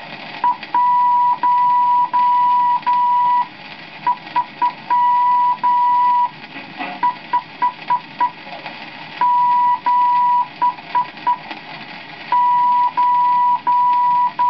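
Morse code instruction record played on a gramophone: a steady high beep keyed in clean dots and dashes at an even, slow pace, sending the figures 1, 3, 5, 7, 9 (dot-four-dashes, three dots and two dashes, five dots, two dashes and three dots, four dashes and a dot). A light record hiss runs between the tones.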